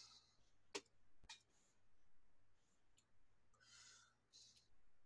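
Near silence with two short, sharp clicks about a second in, half a second apart, and a few faint hissy puffs.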